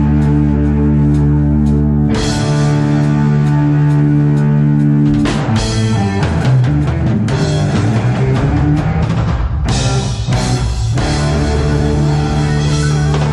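Heavy metal band playing live: guitar chords held and ringing over bass and drums, with the drums breaking into a busier, harder-hit passage about five seconds in that lasts about four seconds before the held chords return.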